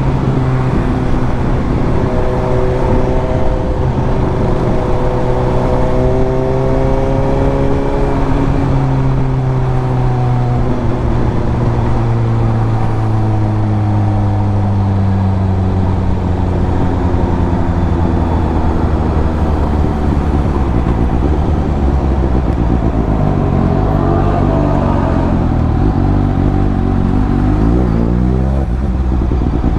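Suzuki GSX-S750's inline-four engine running through its exhaust while riding. The revs hold, then sink slowly for much of the time, and rise quickly near the end as the bike accelerates.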